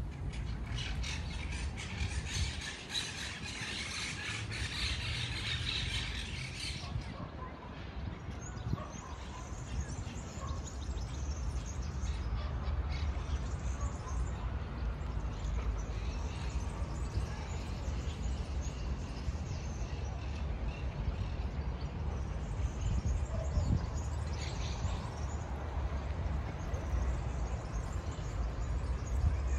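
Outdoor park ambience: many small birds chirping, densest over the first several seconds and then scattered, over a steady low rumble.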